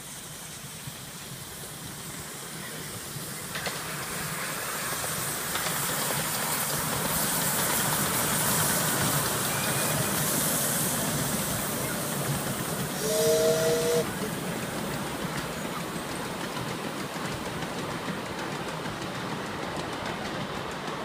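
Miniature LNER A4 Pacific steam locomotive passing close by with its train of open carriages. Its steam exhaust hisses, growing louder as it nears, and it gives a short two-note whistle about two-thirds of the way through. Then the carriages roll past on the track.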